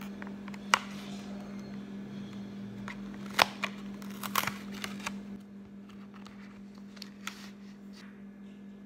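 Paperboard curry box being torn open by hand along its perforated flap: a series of sharp snaps and tearing crackles, the loudest about three and a half seconds in. Near the end come a few lighter rustles as the foil pouch inside is handled, over a steady low hum.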